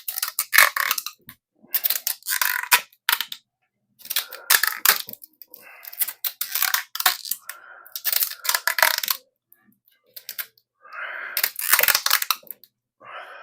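Tubeless rim tape being pulled off its roll and pressed down into a bicycle rim bed, crackling and clicking in short bursts with brief pauses between them.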